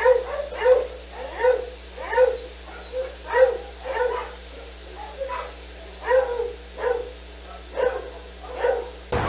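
A dog barking in a steady series of short barks, about one every two-thirds of a second.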